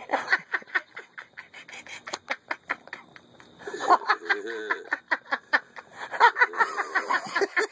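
A person laughing in quick, breathy chuckles, louder near the end.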